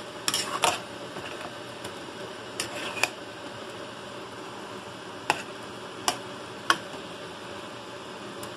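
Metal spatula stirring chicken pieces in a nonstick frying pan, clicking and knocking against the pan: several clicks in the first second, then single ones every second or two, over a steady low hiss.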